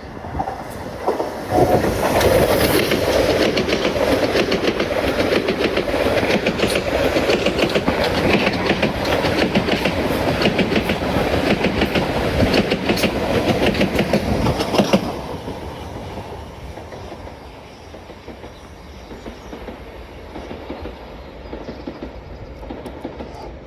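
Southeastern electric multiple unit passing on the rails, wheels clattering rapidly over the track. It is loud for about thirteen seconds, then drops off suddenly and trails away quieter.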